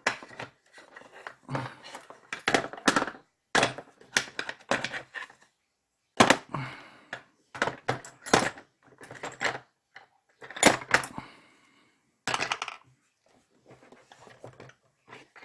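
Small hand tools and metal odds and ends clinking and clattering as they are pushed around and picked through in a search, in irregular bursts with short pauses.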